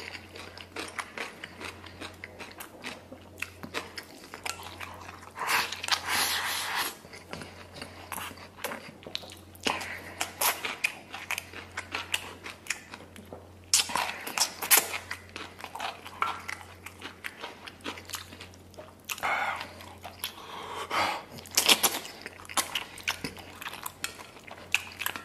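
Close-miked eating: a man chewing mouthfuls of rice and soft braised beef tendon, with wet mouth clicks and smacking coming in irregular bursts, the louder ones near the middle and in the last few seconds.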